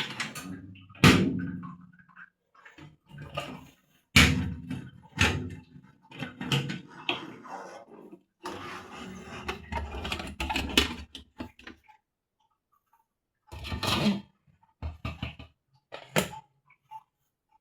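Irregular knocks, clunks and rattles from an old Chaika-2 washing machine and its parts being handled by hand at the end of a wash, with short pauses between them.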